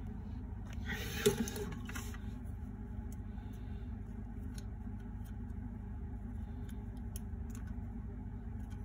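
Small diecast toy tow truck being handled: a brief rustle and one sharp click about a second in as it is picked up, then faint scattered clicks of its parts under the fingers, over a steady low hum.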